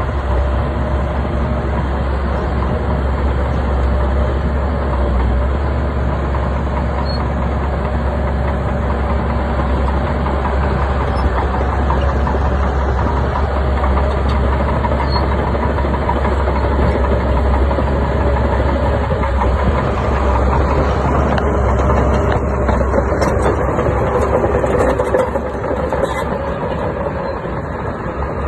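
Bulldozer's diesel engine running steadily, with a constant low hum, easing slightly in level about 25 seconds in.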